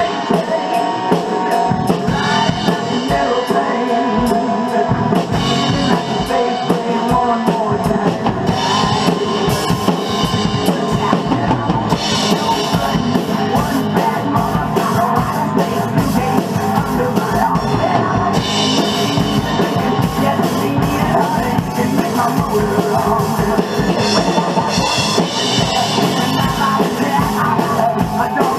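Acoustic drum kit played hard, with busy snare and bass drum hits and crashing cymbals, playing along to a recorded hard rock song.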